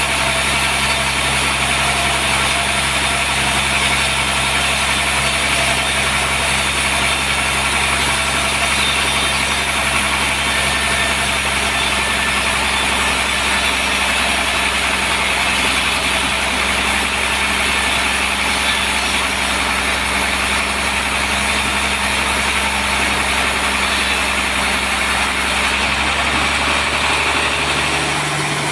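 Sawmill machinery running steadily, a constant engine hum with a loud steady whine from the saw. The sound changes slightly about two seconds before the end.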